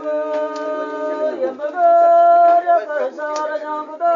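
Voices chanting in long held notes, with several pitches sounding together at times, and a few light clicks over them.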